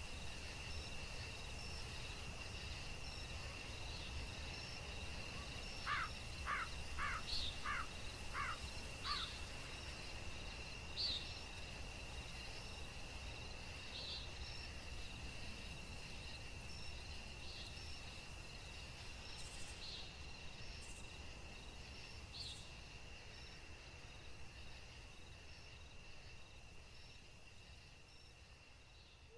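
Nature ambience of a steady, high cricket trill over a low rumble, with short chirps every second or two. A bird gives a quick run of five notes about a quarter of the way in. The whole slowly fades out toward the end.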